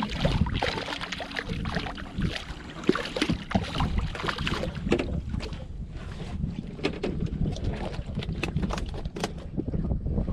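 A hooked porgy (scup) splashing and thrashing at the water's surface beside a small boat, followed by irregular splashes and knocks as it is swung aboard. A steady low wind rumble on the microphone lies underneath.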